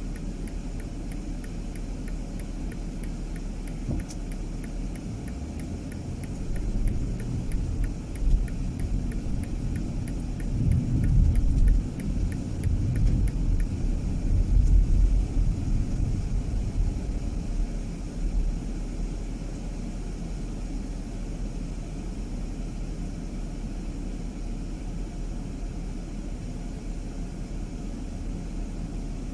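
Car driving: low engine and road rumble that swells louder for a stretch between about 6 and 18 seconds in, then settles back. Faint regular ticking runs through the first half.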